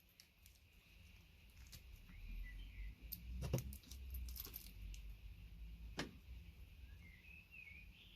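Faint clicks and light metallic clinks of VGA connectors and their gold-plated pins being handled, with a cluster of sharper ticks in the middle and one more about six seconds in, over low handling rumble.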